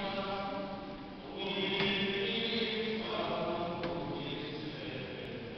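Group of voices singing a slow liturgical chant, held notes moving to a new pitch every second or so.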